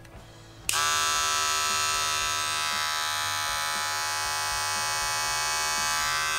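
Wahl Magic Clip hair clippers switched on under a second in and running with a steady electric buzz.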